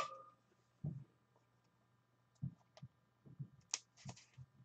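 Faint sounds of trading cards being handled on a table: a sharp click right at the start, then a few scattered soft knocks and light clicks with quiet gaps between them.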